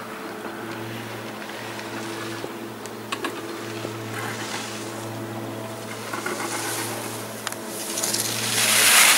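Skis carving on firm snow, a hiss that grows louder near the end as a giant slalom racer comes down the course, over a steady low mechanical hum.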